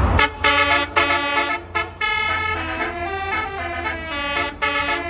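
Basuri musical bus horn playing a telolet tune: a run of stepped horn notes, several tones sounding together, broken by short gaps.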